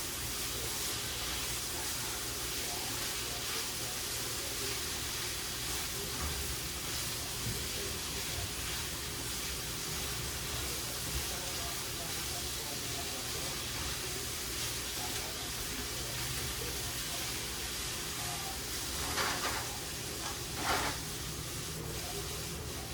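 Steady hiss of hot cooking oil or food frying in a pan on the stove. Two short, louder noises break in near the end.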